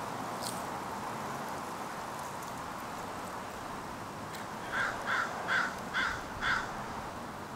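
An American crow cawing five times in a quick run, roughly two to three caws a second, over a steady background hiss.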